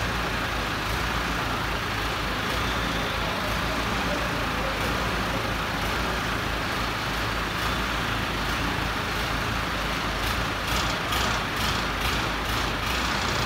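Heavy vehicle engine running steadily, with a run of quick ticks or taps about ten seconds in.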